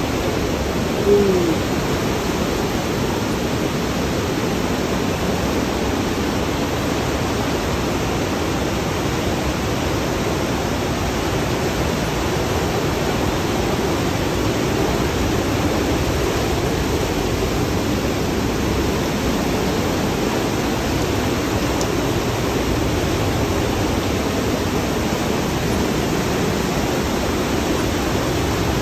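Whitewater of the Partnach river rushing steadily through the narrow rock gorge.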